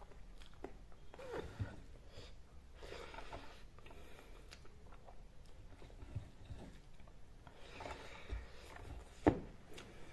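Faint eating sounds: fingers rubbing and mixing rice on a metal plate, with soft chewing and mouth sounds, and one sharp click near the end.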